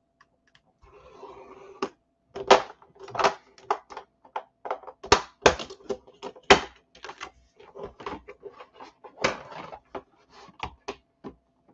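Cardstock being scored on a plastic scoring board: a soft scrape of the scoring stylus about a second in, then many irregular sharp clicks and taps as the card, stylus and cutting mat are moved about on the board.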